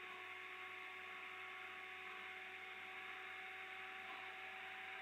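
Open microphone's steady background noise: a faint hiss with a low electrical hum and a few thin, steady whining tones.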